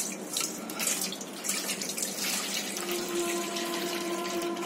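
Milk pouring in a steady stream from a bowl into a stainless-steel mixing bowl, splashing as it fills.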